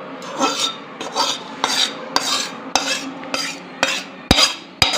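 A metal spoon scraping ghee-roasted gram flour out of a steel kadhai into a steel bowl, then stirring it into roasted semolina. It goes in repeated scrapes about twice a second, with two sharp clinks of metal on steel near the end.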